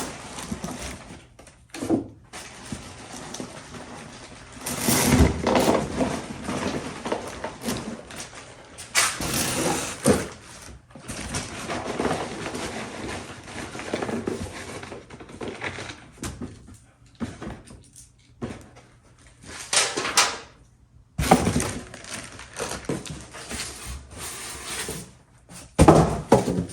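Cardboard box and its packing material being handled and pulled about while a heavy part is worked out of it: rubbing, scraping and rustling in irregular bursts with short pauses.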